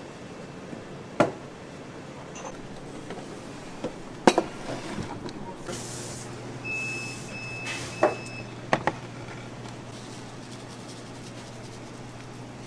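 Restaurant kitchen work noise: a few sharp knocks and clacks, a brief hiss, and a steady high tone lasting about a second, over a low hum that starts about halfway through.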